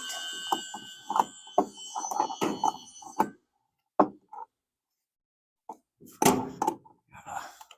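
Irregular metallic clicks and knocks from a hand wrench being worked on a deck ledger bolt as it is tightened, with a near-silent gap and then a short cluster of louder knocks about six seconds in.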